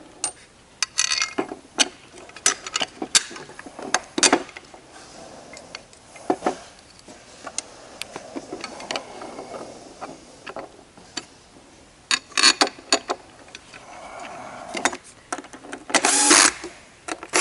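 Clicks and knocks of screws and a stub leg being handled on a metal conveyor frame, then a cordless drill briefly runs a socket head cap screw in near the end.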